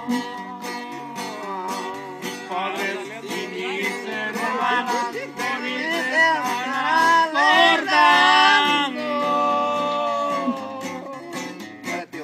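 Acoustic guitar strummed in a steady rhythm with alternating bass notes, played as a break between sung verses. A sliding, wavering melody line rides over it and is loudest about seven to nine seconds in.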